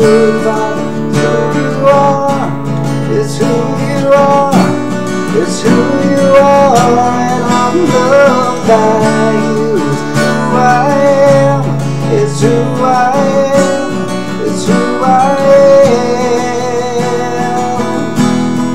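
Acoustic guitar strummed steadily under a man's singing voice, in a slow song.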